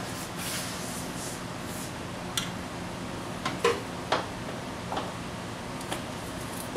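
Scattered light clicks and knocks, about six, as a complete front strut assembly (coil spring on a new strut) is manoeuvred up into a Honda Civic's wheel well and strut tower, over a steady background hum.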